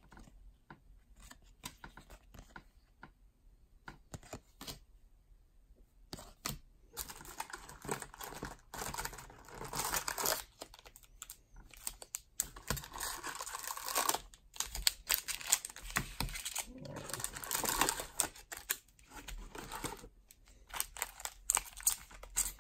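Baseball trading cards clicking and flicking against each other as a stack is thumbed through. From about seven seconds in, a long stretch of foil card-pack wrappers crinkling and rustling as the packs are handled.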